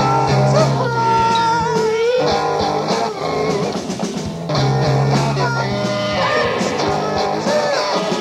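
Pop-rock song: a singing voice with a wavering pitch over guitar and a steady low bass line.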